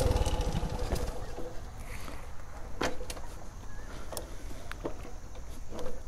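Motorcycle engine running slowly at low revs while the bike creeps over rough ground, with a few sharp knocks and rattles from the bike.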